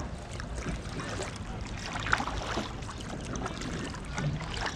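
Kayak paddle dipping and splashing beside an inflatable kayak: small splashes and drips, the sharpest about two seconds in, over a steady low rumble.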